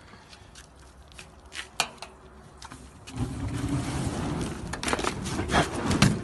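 A few faint clicks, then about three seconds in a sudden whoosh as a large open fire flares up, running on as a steady low rush of burning with sharp crackles. The flare-up is out of control and spreading.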